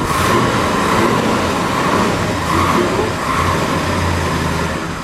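1971 International Harvester 1210 pickup's engine running with a steady low drone, going again after it had stalled on a fuel-tank problem.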